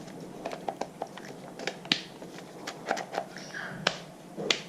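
Irregular sharp plastic clicks and rustling as a Greenworks 24 V cordless drill is handled, its switches and settings worked by hand.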